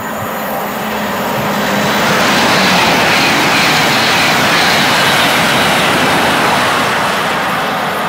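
Great Western Railway Intercity Express Train passing through a station at speed: the rush of wheels on rail and air builds as it approaches, is loudest as the carriages pass, and eases off as it goes by.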